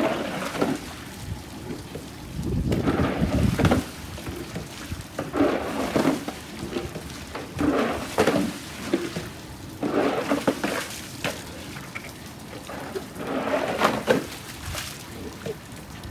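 Push broom shoving standing rainwater across a flooded flagstone patio in repeated swishing, splashing strokes about every two seconds, over the steady patter of rain. Low rumbling in the first few seconds.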